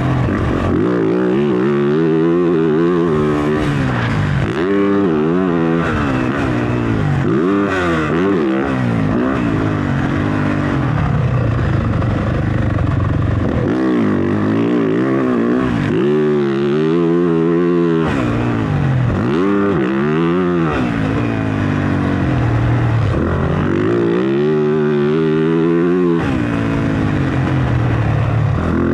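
Motocross dirt bike engine revving hard under acceleration and backing off, its pitch climbing and falling over and over as the rider rides the track.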